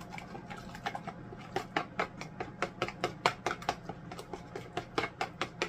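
A spoon stirring melted butter, olive oil, garlic and Cajun seasoning in a plastic mixing bowl, clicking and scraping against the bowl in quick, uneven strokes, several a second.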